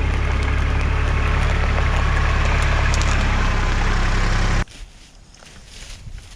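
Kubota L3800 tractor's diesel engine running steadily, with a few light clicks over it. The engine sound cuts off abruptly about four and a half seconds in, leaving much quieter outdoor background.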